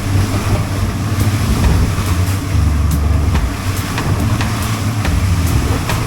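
Small fishing boat running under way through rough chop: a steady low engine drone with wind and water rushing past, and sharp slaps of the hull on the waves every second or so.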